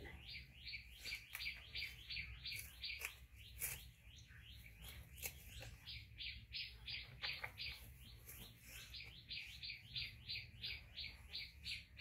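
Faint, rapid chirping repeated at an even pace of about four chirps a second, with a few scattered soft clicks.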